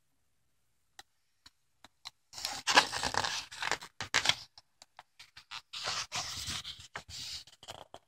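Pages of a paper picture book being handled and turned: a few light taps, then two stretches of paper rustling and scraping, the second starting about halfway through.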